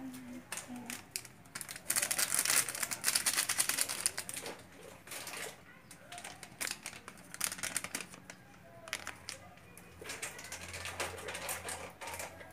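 Crinkling and crackling of a plastic seasoning packet being handled and shaken out over raw fish, in dense clusters of sharp clicks that are loudest from about two to four and a half seconds in, with another cluster near the end.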